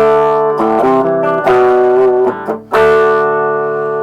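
Electric guitar chords from a Gibson Les Paul's humbucker pickups played through a Fender Vaporizer valve amp with no pedals, the hot pickups pushing the amp a little past clean. Several chords change in quick succession, and the last, struck near the end, is left to ring and fade.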